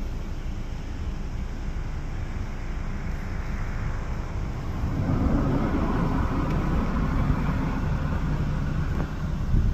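Boeing 737-800's CFM56 jet engines running at taxi power, a steady rumble that grows louder about halfway through.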